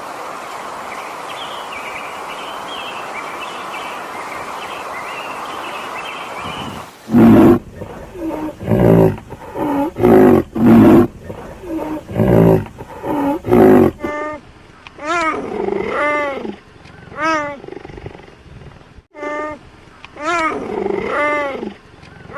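Animal calls: a steady rushing noise for about seven seconds, then a run of loud, deep calls. From about halfway, these give way to higher-pitched calls that rise and fall.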